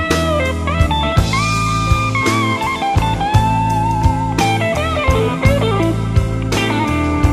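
Electric blues band playing an instrumental passage: a lead electric guitar solo with bent, sliding notes over bass and drums keeping a steady beat.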